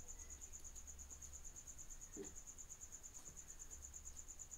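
Faint background cricket chirping: a high-pitched, rapid, evenly pulsing trill that goes on without a break, over a steady low hum.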